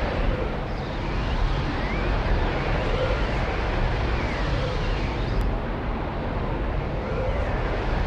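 Swirling vortex sound effect: a steady low rumble under dense rushing noise, with faint whistling glides rising and falling over it now and then.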